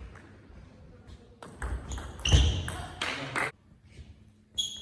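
Table tennis ball ticking on the table and bat: a few separate sharp clicks with short pings. The loudest comes about halfway through, and another comes near the end as the serve is struck.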